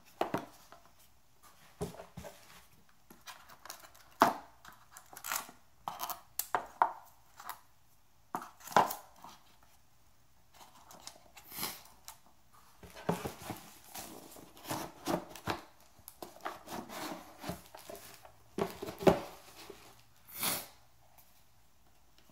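Cardboard phone-box packaging being handled and set down: a run of scattered taps, knocks and short rustles, with a quieter stretch around the middle and one sharp knock near the end.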